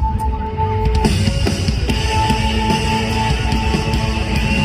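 Live rock band playing an instrumental passage of the song between sung lines: heavy drums and electric guitar with a held high note. The band grows fuller about a second in.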